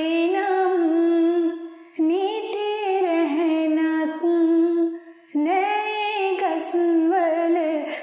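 Background music led by a wordless female vocal, sung in long held phrases that pause briefly about two and five seconds in.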